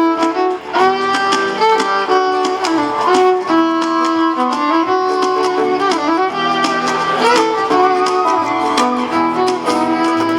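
Acoustic band playing an instrumental passage, with a fiddle carrying a smooth melody of held and sliding bowed notes over the other strings.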